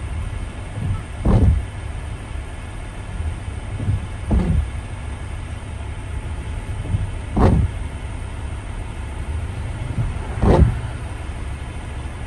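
Windshield wipers sweeping at a steady pace, about once every three seconds, each sweep a short swish that falls in pitch. Under them runs the steady rumble of tyres and engine on a wet road, heard inside the car cabin.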